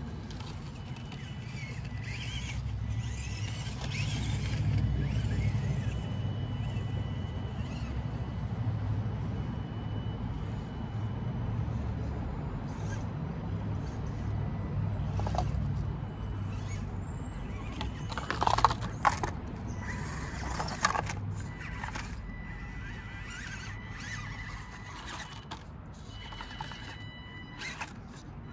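Enduro24 micro RC crawler driving over rocks: its small electric motor and gearing whine in thin steady tones that start and stop, over a low rumble. A few sharp knocks of tyres and chassis on stone, about two-thirds of the way through, are the loudest sounds, and a few short high chirps come midway.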